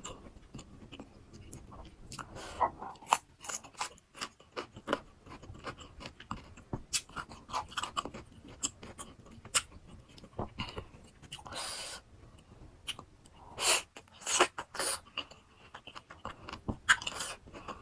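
Close-miked chewing of fresh-cut fruit rujak: crisp crunching bites and wet mouth clicks, with several louder crunches in the second half.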